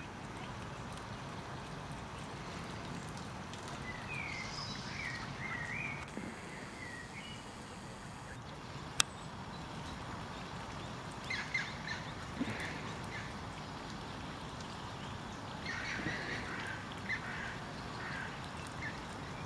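Mallard ducklings peeping in short chirpy runs, a few times over, with one sharp click about halfway through.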